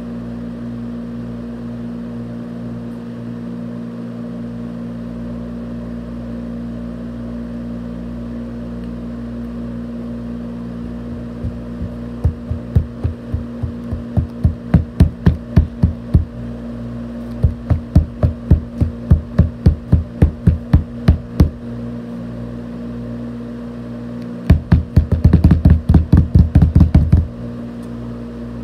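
A steady low hum, then sharp knocks starting about twelve seconds in, in runs of two or three a second with short breaks, ending in a fast flurry of knocking that stops a little before the end.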